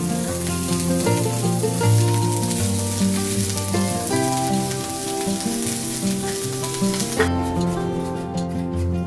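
Salmon fillet sizzling as it fries in a nonstick skillet, a steady hiss that stops about seven seconds in, over background music.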